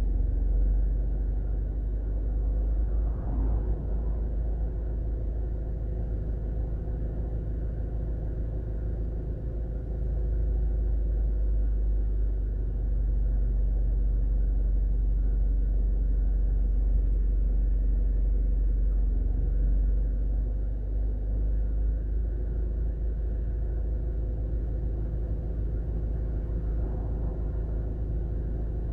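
Road traffic on a wide multi-lane street: cars passing now and then, one about three seconds in and another near the end, over a steady low rumble.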